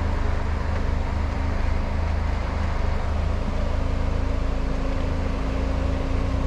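Lifted Jeep Wrangler Rubicon engine running steadily at low speed with a deep, even rumble as the Jeep crawls over a trail obstacle.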